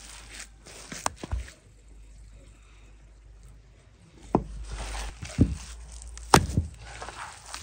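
Wet minced chicken kebab mixture being kneaded by hand in a metal bowl: squelching, with several sharp slaps as handfuls are dropped back into the bowl, a couple about a second in and more from about four seconds on, and a quieter stretch in between.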